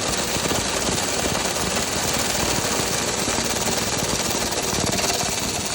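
Dryer vent cleaning equipment running steadily with a fast, rough rattle.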